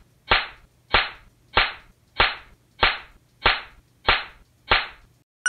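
A belt whipping down in a spanking, eight sharp lashes at an even pace of about three every two seconds.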